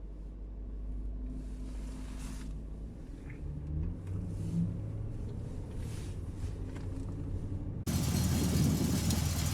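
A car engine running steadily at idle, a low hum. About eight seconds in it suddenly becomes much louder and fuller.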